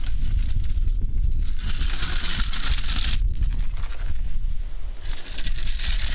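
Wheels of a dolly carrying an engine rumbling as it is rolled over the ground, with metal rattling and jingling in spells.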